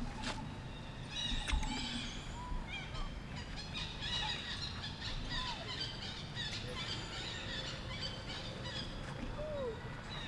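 Forest birds chirping and twittering continuously, with a few short lower calls that arch and fall in pitch, the clearest one near the end.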